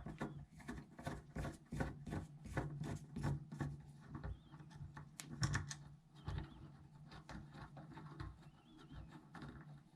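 Phillips screwdriver turning out the screw inside a Delta two-handle faucet knob: a run of small irregular clicks and scrapes of metal on metal, thinning out in the second half.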